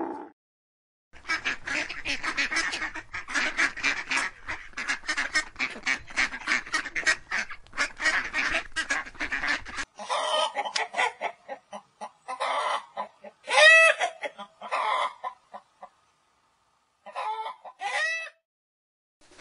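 A flock of poultry calling in a rapid, continuous chatter, then, from about ten seconds in, hens clucking with a few short squawks that rise and fall in pitch.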